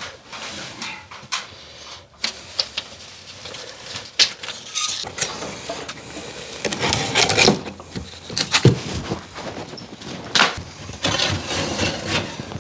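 Irregular knocks, clicks and scraping from hands-on building work, such as handling timber and plasterboard while stripping a ceiling.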